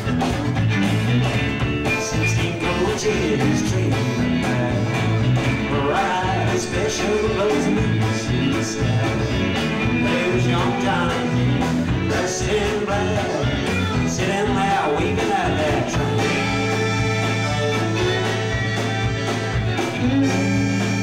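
Live country-rock band playing an instrumental break: a fiddle leads with sliding notes over electric guitar and bass guitar. The sound is from a blippy, low-fidelity old VHS recording.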